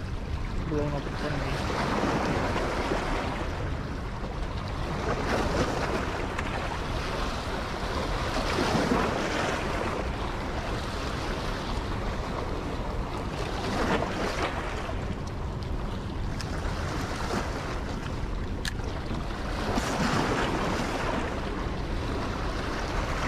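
Rushing water from the dam's outflow current, with wind buffeting the microphone. The noise is steady and swells every few seconds.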